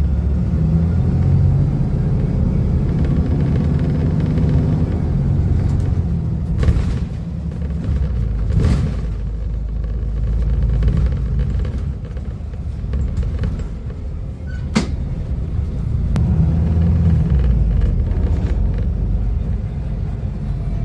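Volvo B250RLE city bus's diesel engine running, its low rumble swelling and easing off several times as the revs change. A few sharp clicks cut through it.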